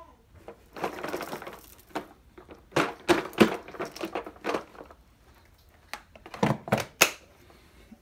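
Irregular crunching and cracking of dry debris being crushed on carpet, mixed with a few thunks, in clusters a bit after a second in, around three seconds and again near the end, the sharpest crack near the end. No vacuum motor is running.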